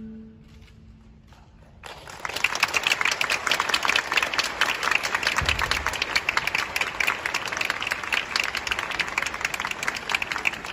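The last note of the performance music fades away, then audience applause starts about two seconds in: many people clapping together in a large arena.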